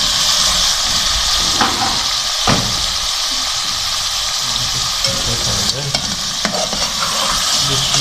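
Raw chicken pieces sizzling in hot oil with ginger-garlic paste in a pot: a steady frying hiss as the chicken starts to sear. A sharp knock comes about two and a half seconds in, with a couple of lighter clicks later.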